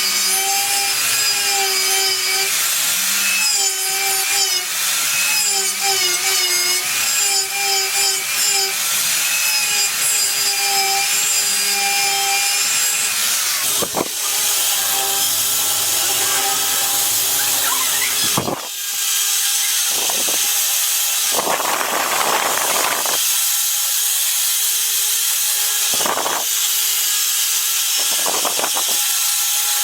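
An electric power tool running and working wood: a steady motor whine over rasping cutting noise, with the pitch wavering as it takes load and a few short harsher spells later on.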